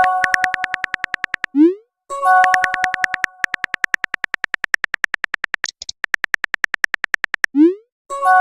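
Synthesized text-chat sound effects: a bright chime chord three times, each followed by a fast steady run of ticking clicks at about ten a second, like typing, with a short rising bloop twice.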